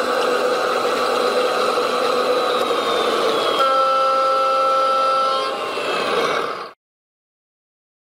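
Steady engine sound of a radio-controlled Volvo A45G articulated dump truck model driving loaded, with a horn sounding for about two seconds midway. The sound cuts off abruptly near the end.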